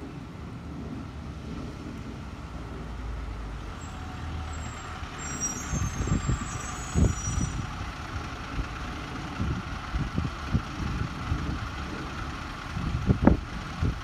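Distant 2003 Blue Bird International 3800 school bus, its DT466E straight-six diesel running under a steady low rumble, with irregular low thumps from about five seconds in, the strongest near the end.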